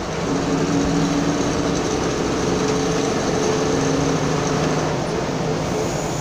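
Engine of a road vehicle running steadily under way, heard from inside the cabin: a low drone with a few held tones over road noise, growing louder just after the start and easing near the end.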